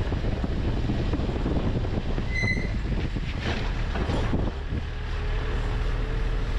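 Wind buffeting the microphone over a steady low rumble, with a short high beep or chirp about two and a half seconds in.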